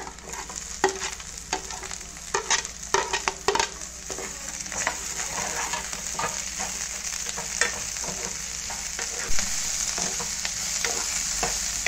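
Chopped green capsicum, onion and garlic sizzling in hot oil in a non-stick frying pan as a white spoon stirs them, with frequent scrapes and taps of the spoon on the pan. The sizzle grows louder in the second half.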